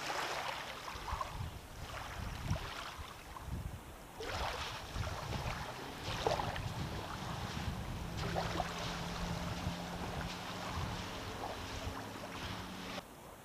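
Gusty wind buffeting the microphone, with a low steady motor hum underneath from about six seconds in. Both drop away abruptly near the end.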